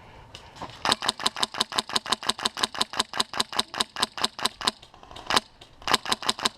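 Polarstar HPA-powered M4 airsoft rifle firing full-auto, a long string of sharp shots about nine a second for nearly four seconds, then a single shot and a short burst near the end. The gun is dry firing, cycling air with no BBs feeding from an empty magazine.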